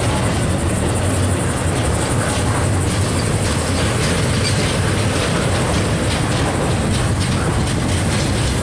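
Double-stack intermodal well cars of a long freight train rolling past slowly under a slow order: a steady rumble of steel wheels on rail with faint, frequent clicks.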